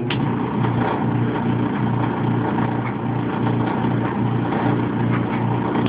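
Maytag Epic Z clothes dryer running with its drum turning, giving a loud low hum that pulses in a steady rhythm; it starts abruptly. This is the unexplained noise the dryer makes whenever the drum rotates, with or without clothes inside, while the belt and drum rotation seem fine.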